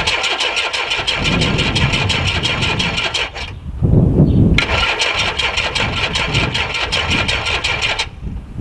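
Starter motor cranking a Mk1 Volkswagen Caddy pickup's engine in a rapid, even rhythm without it catching, in two attempts: the first stops about three seconds in, the second runs from about four and a half seconds until near the end. The engine won't fire because there is no spark at the plugs.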